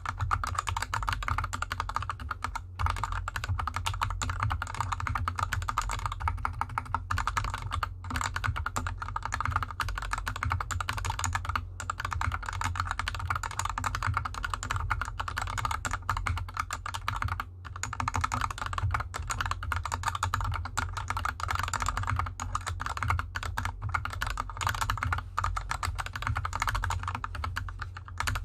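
Fast, continuous typing on a GK64X mechanical keyboard with lubed Gateron Yellow linear switches and DSA keycaps, the keyboard resting on felt fabric. It is a dense run of key clacks with a few brief pauses.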